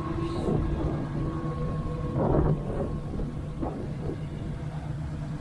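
Unimog truck engine running steadily during a tow-strap recovery in sand, with a brief louder surge a little over two seconds in.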